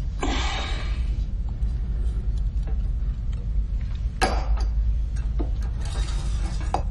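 Steady low hum of a spaceship interior, with scattered light clicks and a sharper knock about four seconds in.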